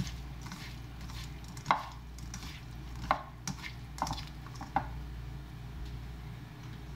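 Hands kneading seasoned, thawed smelt in a bowl to marinate them: a handful of short knocks and squishes of fish and fingers against the bowl, over a low steady hum.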